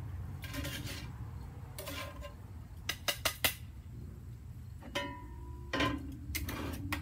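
Cookware clatter at a grill: a utensil scraping in a cast iron pan, a quick run of sharp metal clinks about three seconds in, and a knock with a brief ring about five seconds in as the pan is handled.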